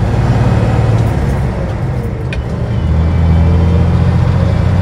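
The diesel engine of a 1979 Kenworth W900A semi truck running under way, heard from inside the cab as a steady low drone with road noise. The drone eases off about two seconds in and comes back stronger about a second later.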